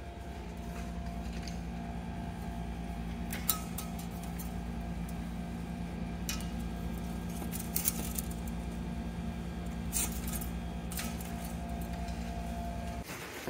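Steady low machine hum in a small room, with a few light clicks and clinks of window blind slats being handled, spread out a few seconds apart.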